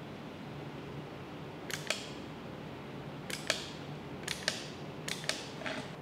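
Rockers of a newly fitted Aqara smart wall switch pressed four times, each press giving a sharp pair of clicks, with a steady low hum underneath.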